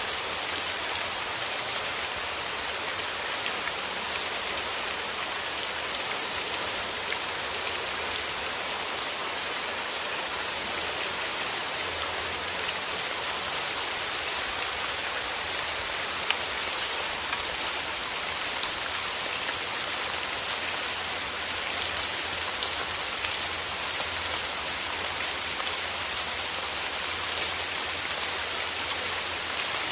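Steady rain falling, an even hiss of rain on surfaces with scattered individual drops ticking through it.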